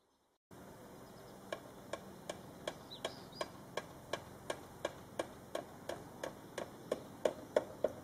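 A steady run of sharp knocks or ticks, about three a second, growing louder toward the end.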